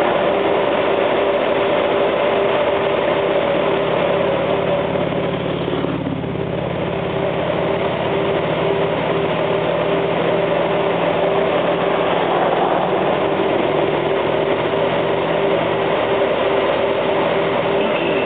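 Riding noise on a 2008 Honda GL1800 Gold Wing cruising on the open highway: steady wind rush on the handlebar-mounted microphone, with the flat-six engine running underneath. A rapidly pulsing tone runs through it.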